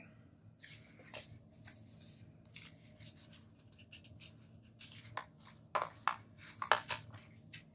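Paper sticker sheets rustling and scraping as they are handled and lifted, with a few sharper papery crackles about six to seven seconds in as a sticker is taken off the sheet.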